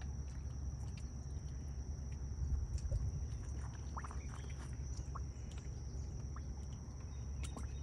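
Outdoor ambience: a steady low rumble, a continuous thin high-pitched whine, and a few faint short chirps about four to five seconds in.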